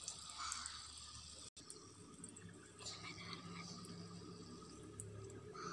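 Faint sizzling of hot oil around a tiny poori frying in a miniature clay pot, with a few light ticks.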